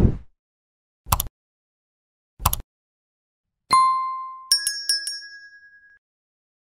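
Subscribe-button animation sound effects: the tail of a whoosh, two short clicks about a second and a half apart, then a bright ding. A quick run of tinkling bell strikes follows and rings out over about a second and a half.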